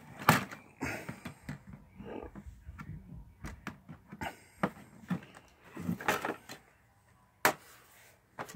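Hands working the cover off a Happy Meal toy display case: scattered knocks, clicks and rustling, with a sharp knock a little after the start and another near the end.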